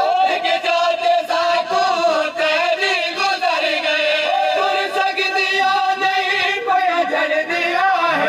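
Male voices chanting a noha, a Shia mourning lament, in a sustained, wavering melody. Several voices appear to sing together.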